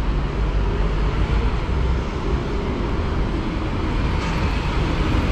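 Steady street traffic on a busy city road: vehicle engines and tyre noise with a heavy low rumble.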